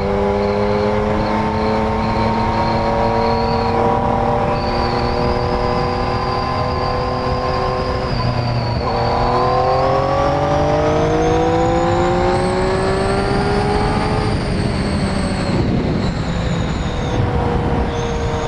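Yamaha MT-09's three-cylinder engine pulling under acceleration, its pitch rising slowly, dropping at a shift up about nine seconds in, then climbing again until the throttle eases off near fifteen seconds. Steady wind rush on the microphone at road speed.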